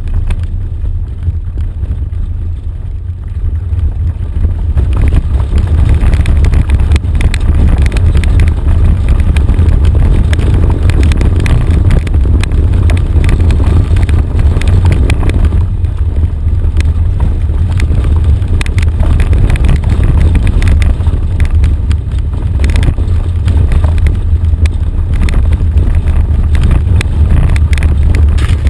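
Off-road vehicle driving down a rough gravel track: a loud, steady low rumble of the engine and body, with frequent rattles and knocks as it rides over the bumps. It gets louder about five seconds in.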